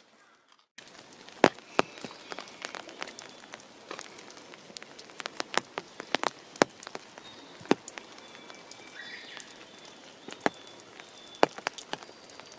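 Water drops falling irregularly, many sharp separate taps of varying loudness over a soft steady hiss of rain.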